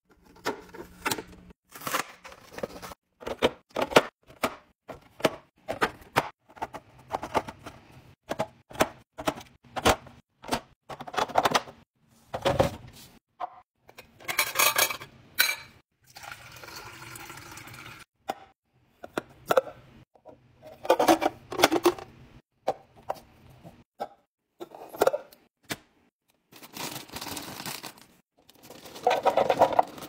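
A run of kitchen-restocking handling sounds: clear plastic bins and lids clicking, tapping and knocking on a stone countertop. Liquid is poured into a glass measuring cup a little past halfway, and near the end chips tumble and rustle out of a crinkly bag into a plastic canister.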